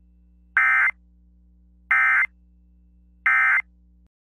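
Emergency Alert System end-of-message data tones: three short, identical bursts of buzzy digital warble about a second apart, the 'NNNN' code that closes the alert. A faint low hum underneath cuts off just after the third burst.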